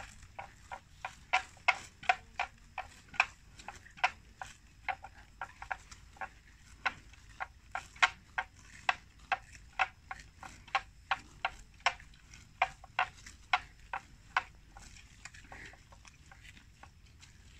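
Water buffalo tearing off grass as they graze: a run of crisp snaps, about two or three a second, uneven in loudness, that stops a few seconds before the end.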